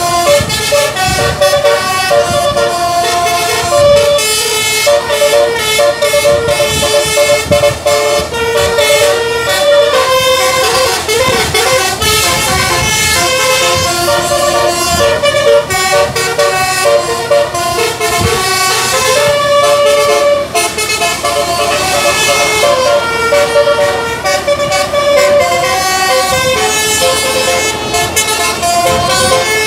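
Bus musical horn (telolet basuri) playing a melody in held notes, one pitch after another without a break, loud over a running bus engine.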